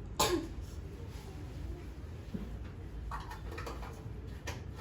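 One deliberate, forceful cough, a short sharp burst just after the start, given on a count after several deep breaths as an effective (airway-clearing) cough to bring up phlegm. A few much fainter short noises follow later.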